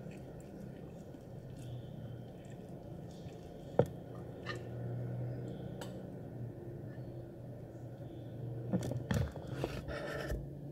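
Fork and ceramic plate clinking and tapping while a cheesy omelette is handled. One sharp click comes about four seconds in and a cluster of small knocks near the end, over a low steady hum.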